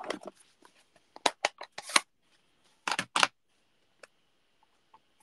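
A string of sharp taps and clicks from a clear acrylic stamp block being inked on an ink pad and handled on the desk, with a cluster early, two more about three seconds in and one last tap about four seconds in.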